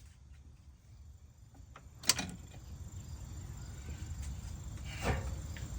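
Clunks of a battery box being fitted back into a car's engine bay: one sharp knock about two seconds in, a smaller one near the end, and a few faint ticks, over a low rumble.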